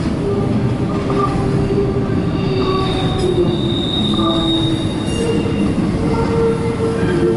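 Double-stack container cars of a CSX intermodal freight train rolling past: a steady rumble of wheels on rail, overlaid with wheel squeal as the cars come off the wye curve. The squeal is several shifting, drawn-out tones, the shrillest a high whine from about two and a half to five seconds in.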